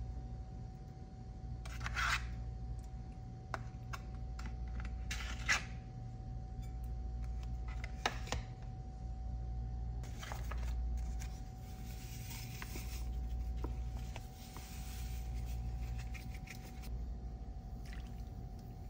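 Kitchen handling sounds: scrapes and rubs with a few sharp clicks as cream cheese is scooped from its plastic tub into a ceramic bowl, over a steady low hum.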